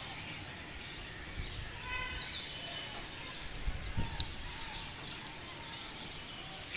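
Open-air rooftop background with distant voices and faint bird chirps, and a few dull thumps about four seconds in.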